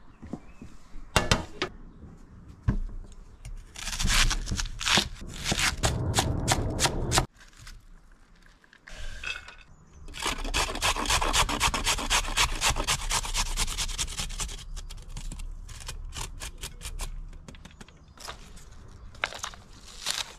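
White cabbage being shredded on a metal box grater, in runs of quick repeated strokes. Near the end, a knife cuts green onions on a wooden cutting board with a few separate knocks.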